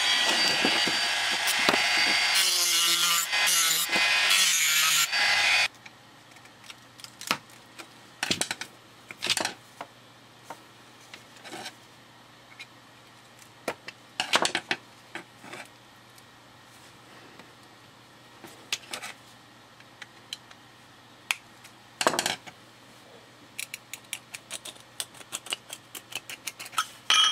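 Handheld rotary tool with a cut-off wheel grinding through the pacemaker's metal case for about six seconds, its pitch wavering as it bites, then it stops abruptly. After that come scattered clicks, taps and scrapes of small metal parts being handled, with a quick run of them near the end.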